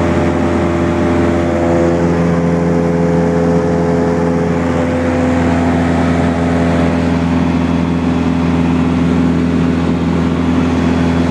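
Cessna light aircraft's piston engine and propeller droning steadily, heard from inside the cabin.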